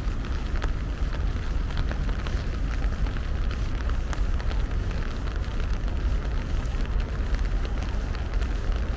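Steady rain falling, with many small drop ticks scattered through it, over a low rumble.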